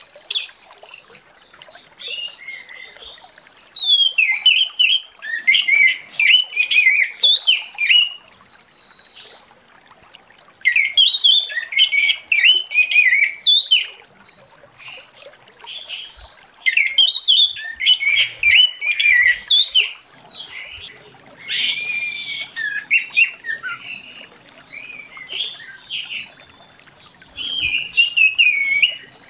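Orange-headed thrush (anis merah) singing continuously: bursts of rapid, varied whistled and warbled phrases with brief pauses between them.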